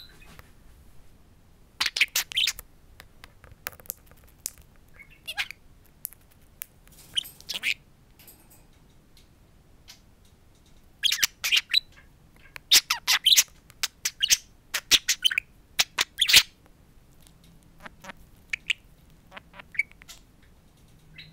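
Budgerigar chattering and squawking at its reflection in a mirror: short harsh bursts about two seconds in and again around seven seconds in, then a longer, busier run from about eleven to sixteen seconds in, with sharp clicks between.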